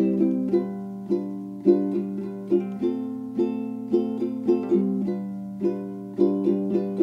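Background music: plucked string notes and chords picked in a light, even rhythm.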